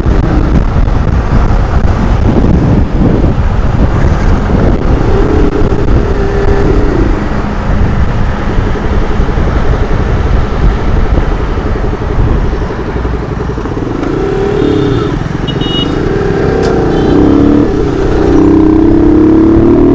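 Motorcycle engine running on the move under heavy low wind rumble. Its pitch rises and falls a few times and climbs steadily near the end as it accelerates.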